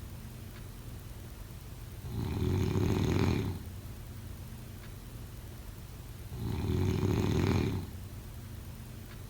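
Snoring: two snores, each lasting about a second and a half and about four seconds apart, with a quieter steady stretch between them.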